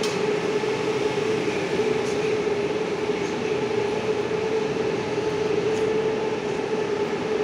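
St Petersburg metro 81-725.1 'Baltiets' train pulling out of the station along the platform, its rolling noise mixed with a steady hum.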